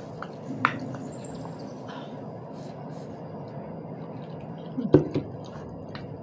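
Close-up eating sounds: a wooden spoon clicking against a plastic bowl, then a loud wet mouth sound about five seconds in as a spoonful of saucy macaroni is taken and chewed.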